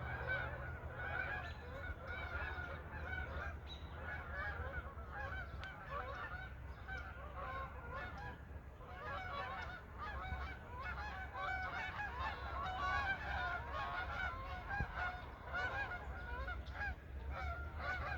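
A flock of Canada geese honking, many short calls overlapping without a break.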